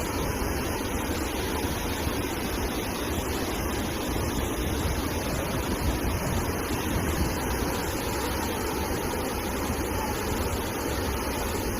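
Fast-flowing flash-flood water rushing, a steady dense noise with no breaks or changes.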